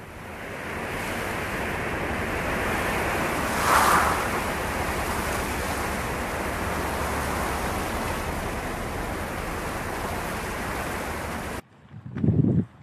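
Steady rushing noise of wind and a moving car, with a brief louder swell about four seconds in. It cuts off abruptly near the end, and a short louder sound follows.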